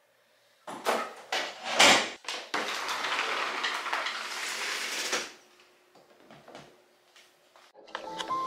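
A few clunks and knocks, the loudest about two seconds in, then a sliding glass patio door rolling along its track for about three seconds. A few faint clicks follow.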